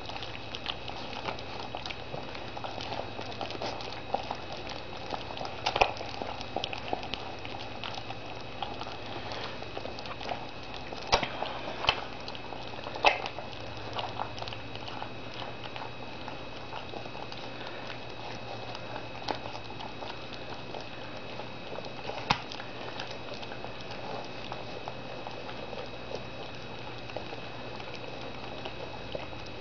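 Several Springer spaniel puppies eating soft cooked food together from one dish: a dense, continuous patter of wet smacking, chewing and lapping, with a few louder clicks scattered through.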